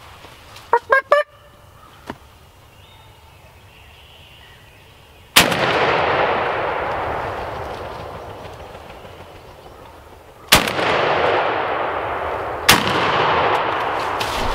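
Wild turkey gobbler giving a short gobble about a second in. Then comes a sudden loud crack with a rushing noise that fades over several seconds, and two more sudden loud onsets near the end; these onsets are the loudest part.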